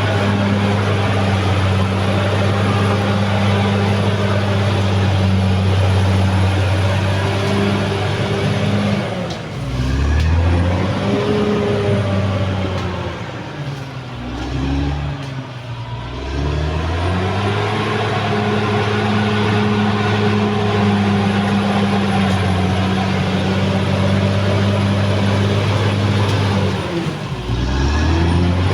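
Caterpillar D6R XL bulldozer's diesel engine running under load: a steady low drone that three times sags in pitch and climbs back, about ten, fifteen and twenty-seven seconds in.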